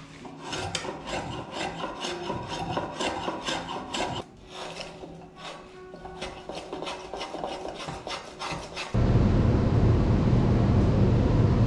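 Quick scraping strokes of a hand tool shaving a wooden canoe yoke, quieter after about four seconds. About nine seconds in, a loud steady noise cuts in suddenly and is louder than the strokes.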